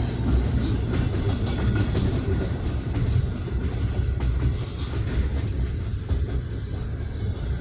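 Passenger train wheels knocking and rumbling over the rails, heard from inside an open sleeper (platskart) carriage: a steady low rumble with faint clicks.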